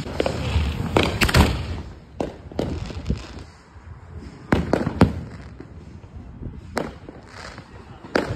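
Fireworks going off: about ten sharp bangs at uneven intervals, bunched in the first couple of seconds, with another loud pair around four and a half to five seconds in and more near the end.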